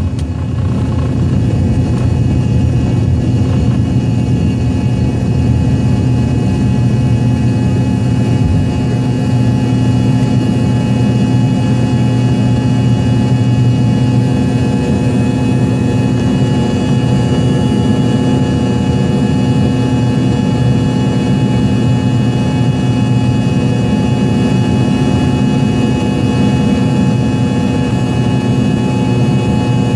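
Rolls-Royce AE 3007A1 turbofan of an Embraer EMB 145 running at takeoff and climb thrust, heard close to the engine. It is a loud, steady jet noise: a deep drone under several steady whining tones, and one high whine grows a little stronger about halfway through.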